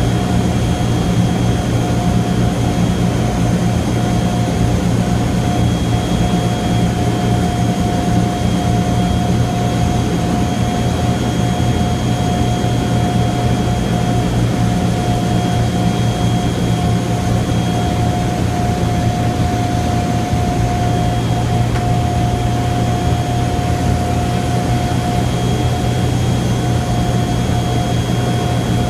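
Boeing B-29 Superfortress's four Wright R-3350 radial engines and propellers droning steadily, heard inside the nose cabin on the landing approach, with a steady higher whine over the low drone.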